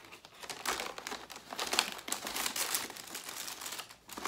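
Wrapping paper crinkling and rustling as it is pulled open from around a wrapped book, in irregular crackles that are loudest about two seconds in, with a short lull near the end.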